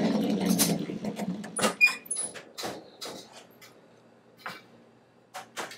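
Hobart floor mixer running with its paddle beating mashed potatoes, then winding down about a second and a half in. It is followed by a string of sharp metal clanks and clicks as the steel bowl and paddle are handled.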